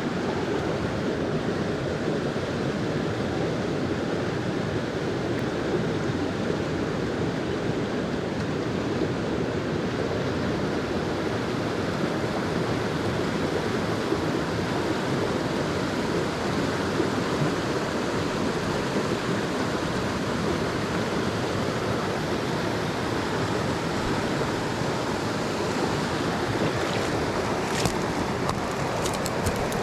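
Mountain stream rushing over rocks: a steady, even rush of water, with a few small clicks near the end.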